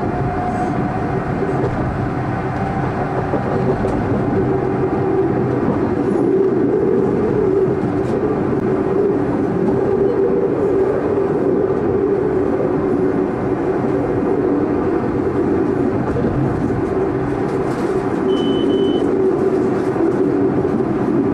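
Tram running along the track, heard from the driver's cab: a steady rumble of wheels on rails with a low hum. A brief high tone sounds about 18 seconds in.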